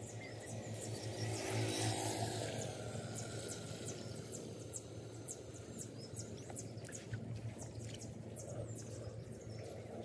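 Outdoor ambience: a steady low hum with many short, high chirps and clicks over it, a little louder about two seconds in.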